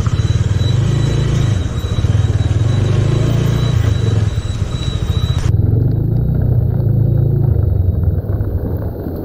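Single-cylinder engine of a TVS Apache RTR 160 4V motorcycle running while under way, a loud, steady low rumble. The sound turns abruptly duller a little past halfway.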